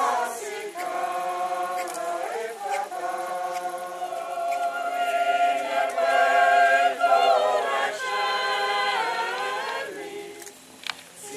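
Mixed choir of men and women singing held chords, swelling louder midway and stopping about ten seconds in.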